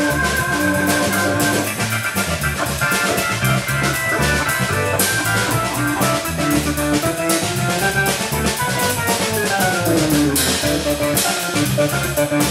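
Live instrumental jazz-groove trio: electric organ playing sustained chords and runs over an electric bass line and a drum kit with steady cymbal and drum strokes. A falling run of organ notes comes about ten seconds in.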